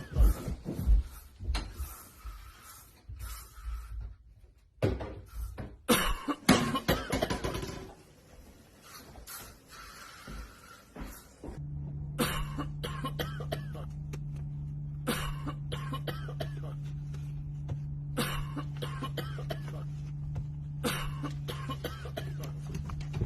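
A person coughing in irregular bursts. About halfway through, a steady low hum starts, with short sharp clicks over it.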